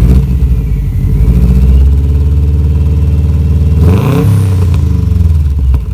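Subaru WRX's turbocharged flat-four, breathing through a catless bellmouth downpipe and HKS Carbon-Ti exhaust, being revved: the revs climb over the first two seconds and hold, then it is blipped sharply about four seconds in. There is a sharp pop from the exhaust near the end.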